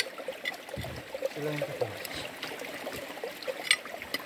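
Shallow stream water trickling and splashing around a rock being pried loose with a steel bar, with a couple of brief sharp knocks, one at the start and one near the end.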